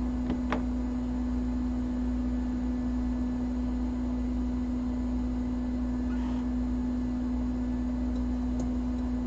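A steady, even electrical hum of bench equipment, one low tone, with two light clicks about half a second in.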